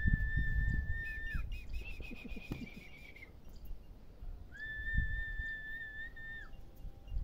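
High whistling: a steady whistled note held for under two seconds, a shorter warbling whistle, then the steady note again, over low rumbling noise.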